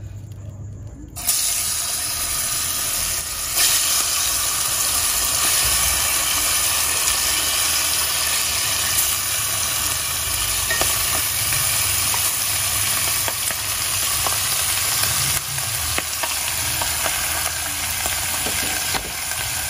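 Seasoned chicken feet sliding from a plate into a pot of curry powder browned in hot oil, setting off a loud sizzle that starts suddenly about a second in and carries on steadily as more feet go in.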